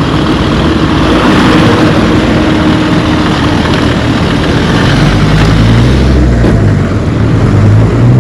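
Road traffic: motor vehicles running past on the highway, with a deeper engine rumble from a heavier vehicle in the second half.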